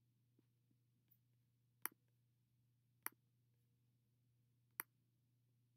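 Three sharp computer mouse clicks, spaced a second or two apart, over near silence with a faint steady low hum.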